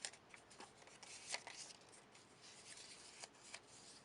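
Faint rustling of paper strips and cardboard tubes being handled and folded, with a few light clicks and taps.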